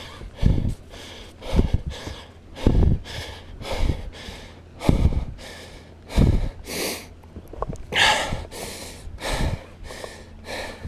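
A man breathing hard and fast close to the microphone, about one loud breath a second, while he fights a big fish on the rod.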